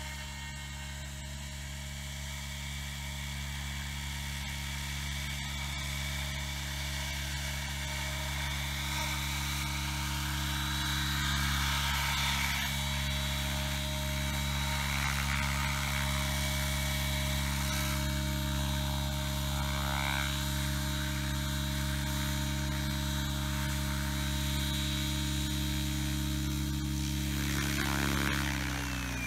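Align T-Rex 700E electric RC helicopter in low flight: the steady buzzing whine of its main rotor and electric motor, growing louder for the first dozen seconds as it comes in close. Near the end it touches down and the rotor begins to spool down, its pitch falling.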